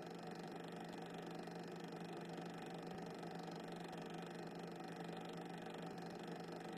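Faint steady hiss with a constant low hum, unchanging throughout: background noise of a silent 8mm cine film transfer, with no train sound.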